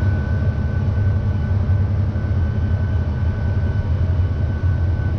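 Tractor engine running steadily under load while seeding, a constant low drone with a thin steady whine riding over it.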